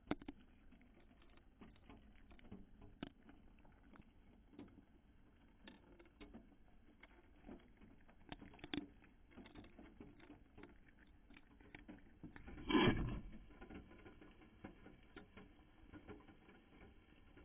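Scattered small clicks and taps of a cat moving and feeding at a street-cat feeder, picked up by the feeder camera's thin microphone. One brief louder noise breaks in about thirteen seconds in.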